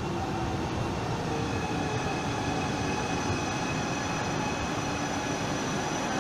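Coradia Meridian ETR 245 electric multiple unit (Malpensa Express) approaching along an underground station platform. It makes a steady rumble, with thin high tones that grow stronger toward the end.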